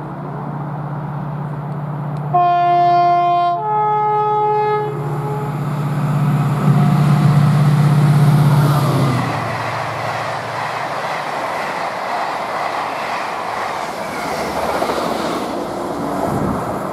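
DRS Class 68 diesel locomotive sounding its two-tone horn, a lower note then a higher one, about two seconds in. It then passes at speed, its engine loudest around eight seconds in. The coaches behind follow, rumbling and clattering over the rail joints as the train draws away.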